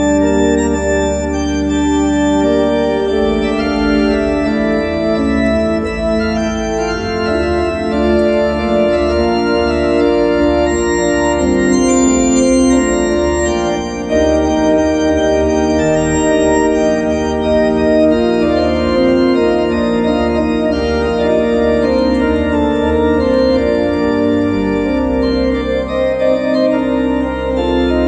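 Organ playing sustained full chords over a deep pedal bass. The bass moves note by note from about three seconds in, then settles on a long held low note near the end.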